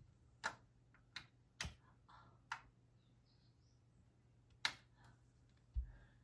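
Faint scattered clicks and light knocks, about five in all, the loudest about four and a half seconds in, followed by a dull low thump near the end.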